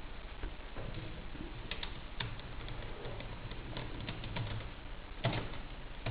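Scattered light clicks and ticks of a small screwdriver turning out the screws that hold a laptop screen in place, over a faint low hum; the sharpest click comes about five seconds in.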